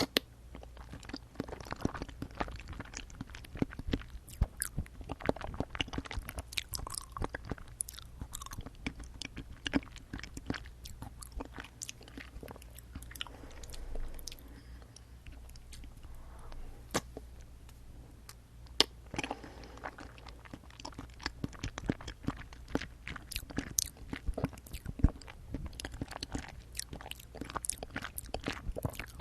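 Close-miked chewing of jelly straws: many irregular, sticky mouth clicks and smacks, with a quieter stretch in the middle.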